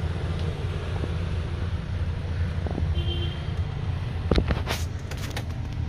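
Diesel truck engine idling with a steady low rumble. A few sharp clicks and knocks come about four to five seconds in.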